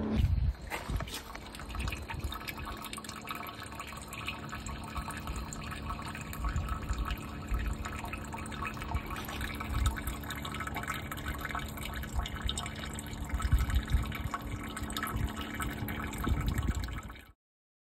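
Rainwater dripping and trickling after a light shower, with a faint steady hum underneath.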